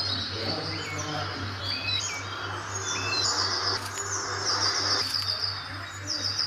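Birds chirping, with short high calls and rapid trills that grow busier through the second half, over a steady low hum, all run through the layered pitch-shift 'G Major' effect.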